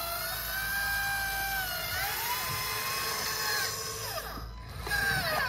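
Radio-controlled model excavator's motors whining as it works the arm and lowers the bucket into the trench, the pitch rising, holding and falling with each movement. Voices start near the end.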